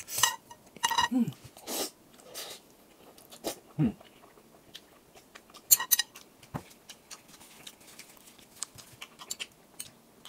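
Close-up eating sounds: chewing of spicy noodles, with scattered sharp clicks of metal chopsticks against a glass bowl, the sharpest about six seconds in.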